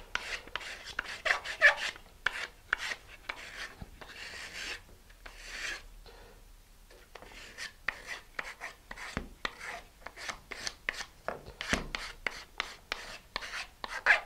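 Sandpaper rubbed by hand over the wooden nose of a model rocket glider's fuselage boom, rounding off its leading edge: a run of quick back-and-forth rasping strokes, with a short pause about six seconds in.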